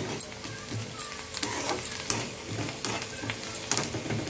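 Metal spatula stirring sautéed onions in a frying pan, with repeated scrapes and taps against the pan over a light sizzle.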